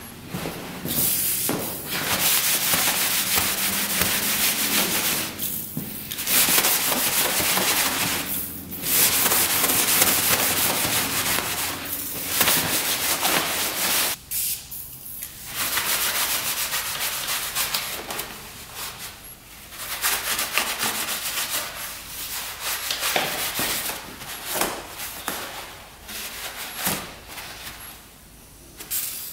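A cloth rag scrubbed hard back and forth over a dirty motorcycle seat, a steady rasping rub in long stretches broken by short pauses.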